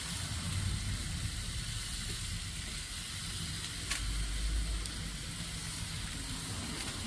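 Food frying in a hot pan, a steady sizzle over a low rumble, with two faint clicks about four and five seconds in.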